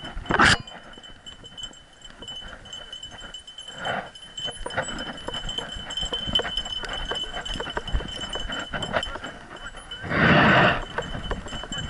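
A dog running through tall grass, heard from a camera on its harness: grass brushing and quick footfalls, with a faint steady high tone underneath. One short loud burst about ten seconds in.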